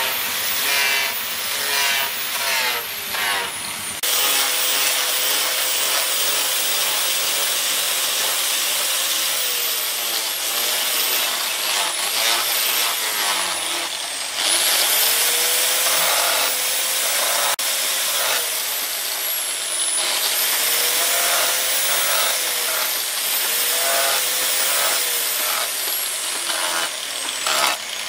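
Electric angle grinder with a sanding disc shaping a wooden knife handle: a high motor whine over a rasping hiss of abrasive on wood. The whine sags in pitch each time the disc is pressed into the wood and climbs back as the pressure eases, several times over.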